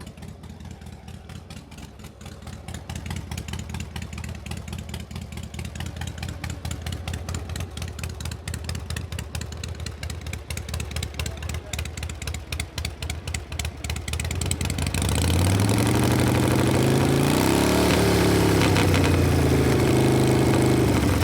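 Motorcycle engine idling with a fast, even pulse. About three-quarters of the way through it gets louder, its pitch rising and then falling as it revs.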